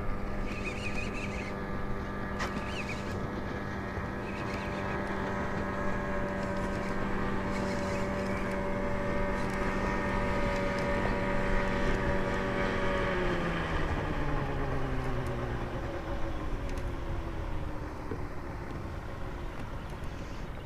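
A boat motor runs with a steady hum, then winds down with falling pitch from about 13 seconds in, fading out a few seconds later.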